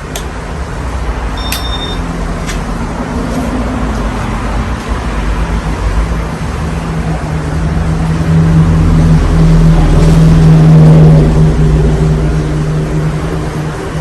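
A Casablanca Halogen Star ceiling fan running, with a steady motor hum and the rush of air from its blades. The sound grows louder after about eight seconds and eases off near the end. A few faint clicks come in the first few seconds.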